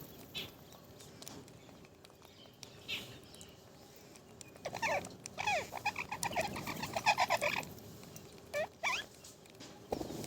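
Pet parrot chattering: a rapid run of short, chirping calls for about three seconds in the middle, then two brief falling calls.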